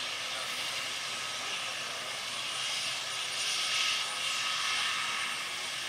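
Mil Mi-17 military transport helicopter running on the ground with its main rotor turning: its twin turboshaft engines give a steady high whine over an even rush of rotor and exhaust noise.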